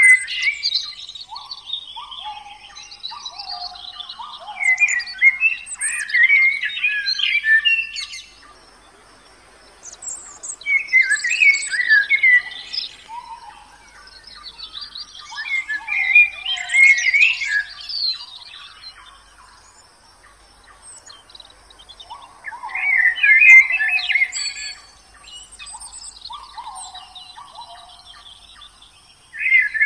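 Songbirds singing in bursts every five or six seconds: quick high chirps and trills over lower, falling whistled notes, with quieter gaps between.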